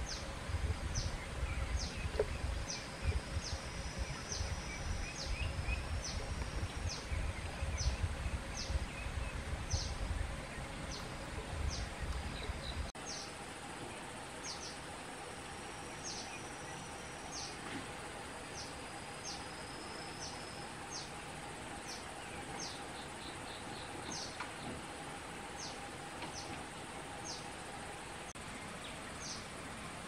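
Forest ambience: a short, high chirp repeating about once a second, now and then with a thin held whistle. A low rumble underneath cuts off suddenly about halfway through, and a faint steady drone follows in the second half.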